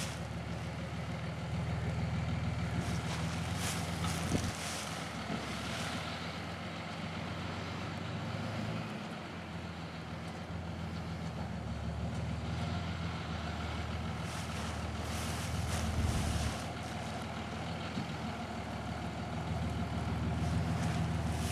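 Engine of the shed-delivery vehicle running steadily at low revs while it backs the shed into place.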